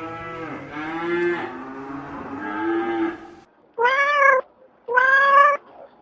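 A cow mooing in one long, low call with a slowly rising pitch, then, after a brief gap, a cat meowing twice in short meows.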